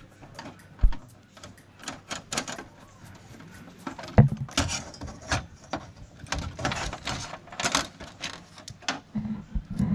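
Irregular clicks, taps and knocks of hands handling parts and tools while swapping a TV's circuit board, with a heavier thump about a second in and another a little after four seconds.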